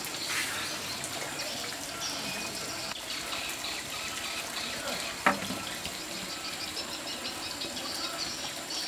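Steady running water, like water pouring or flowing into a pool, with a single sharp knock about five seconds in.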